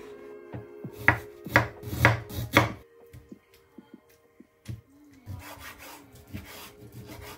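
Kitchen knife chopping on a bamboo cutting board: about five sharp strikes roughly half a second apart in the first three seconds. Softer cutting and scraping of the knife through a raw chicken thigh follows near the end.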